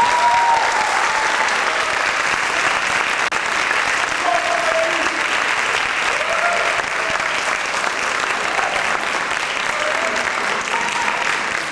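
Audience applauding steadily, with a few brief calls from the crowd over the clapping.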